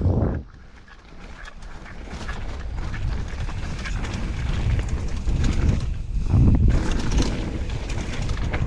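Wind buffeting the microphone with a low rumble, building gradually in level, after a short loud gust at the very start.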